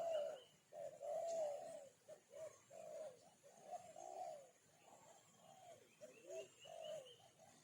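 A dove cooing, a run of short low arched coos repeated about every half second, louder at first and then softer.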